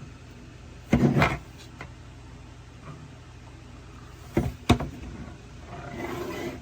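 Handling noise: a clattering knock about a second in, two sharp clicks a little after four seconds, and a short rustle near the end.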